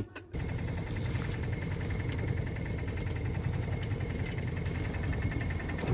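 A small sailboat's diesel engine running steadily as the boat motors along on a calm sea.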